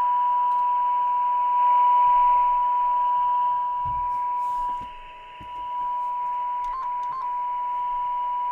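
A steady, single-pitch test tone played through the speaker of a Vertex Standard VX-3200 mobile radio, with a light hiss behind it. It dips in loudness about five seconds in, then comes back a little quieter. This is the radio's repaired audio stage passing sound again.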